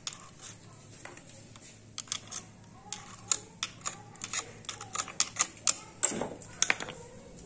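Irregular metallic clicks and scrapes of a screwdriver tip probing the oil strainer slot of a Honda Bros crankcase, picking out debris that is broken pieces of the disintegrated stator.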